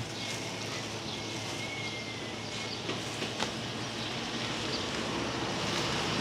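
Steady mechanical hum with a thin high whine running through it, broken by a few sharp light clicks, once at the start and twice around three seconds in.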